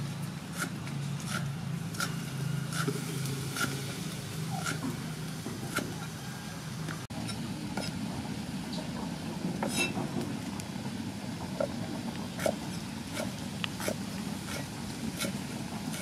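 Cleaver chopping pickled mustard greens on a thick wooden chopping board: sharp knocks about every 0.7 seconds, less regular in the second half. A low engine-like hum runs underneath.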